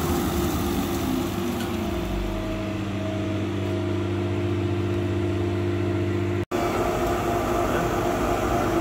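Laser cutter and its fume-exhaust fan running: a steady machine hum with several held tones. It drops out for an instant about six and a half seconds in, then carries on.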